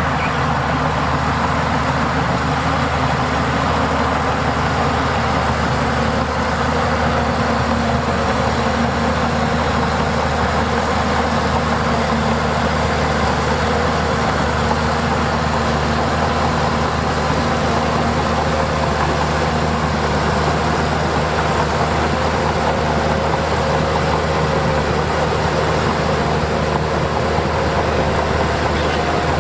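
Diesel engine of heavy earthmoving machinery running steadily under a constant mechanical din.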